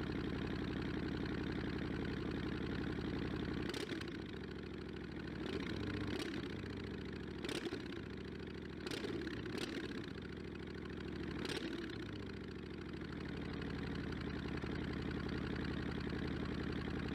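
An engine idling steadily, with a few sharp clicks scattered through the middle.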